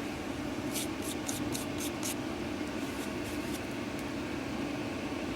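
Dehumidifier running with a steady hum. About a second in comes a quick run of six soft, sharp ticks, then a few fainter ones.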